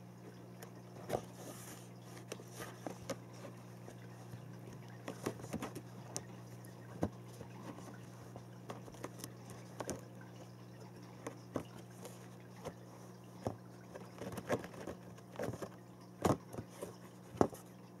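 Irregular taps, knocks and scratches of a cat's paws batting at a paper-covered cardboard box, with a few louder knocks near the end, over a steady low hum.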